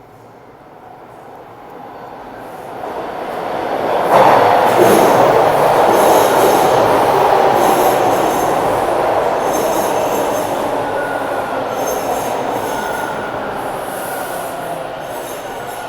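Toronto Line 2 subway train (Bombardier T1 cars) approaching and running through the station. Its rumble grows for about four seconds, then jumps suddenly to its loudest as the train comes alongside. It stays loud with repeated crackly clatter and a thin wheel squeal in the second half, slowly easing off.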